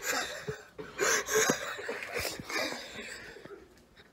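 A man laughing in several short breathy bursts of chuckling, dying away near the end.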